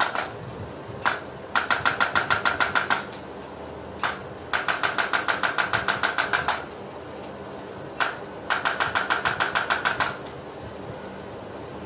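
Electric chiropractic adjusting gun firing: a single click, then a rapid train of clicks at about seven a second for one and a half to two seconds, repeated three times about four seconds apart.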